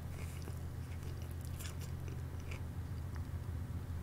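Faint chewing of food, with a few soft mouth clicks, picked up by a headset microphone over a steady low electrical hum.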